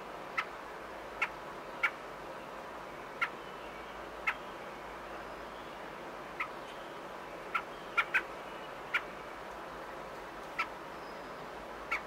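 American robin giving single short, sharp call notes, about a dozen at irregular intervals, two of them in a quick pair, over a steady faint hiss.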